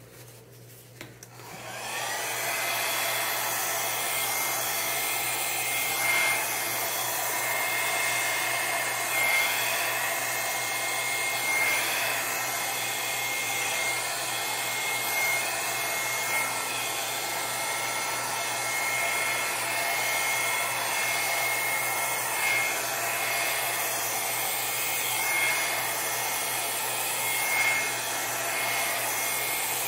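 Handheld hair dryer switching on about a second and a half in and running steadily with a thin high whine, blowing wet acrylic paint across a wooden plaque in a Dutch pour.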